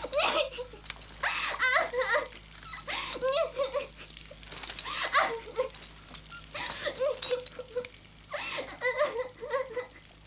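A young girl sobbing hard in repeated wailing, gasping bursts, one every second or so, her face pressed into an adult's shoulder.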